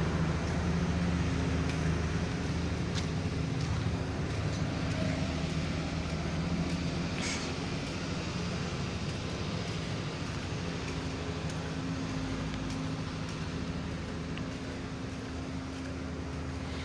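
Steady low machine hum made of several held low pitches, with a faint even background haze and a short hiss about seven seconds in.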